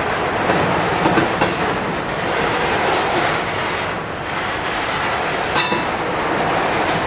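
CSX diesel locomotives and hopper cars of a freight grain train rolling past with a steady rumble, with a few clicks of wheels over the rails. A short wheel squeal comes about five and a half seconds in.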